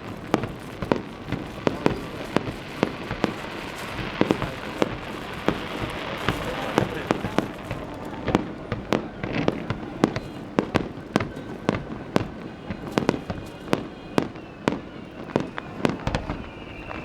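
Aerial fireworks display: shells bursting in quick succession, many sharp bangs with crackling between them. A high whistle joins near the end.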